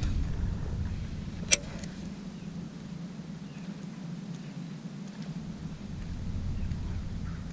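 A boat motor running with a steady low hum, with one sharp click about one and a half seconds in.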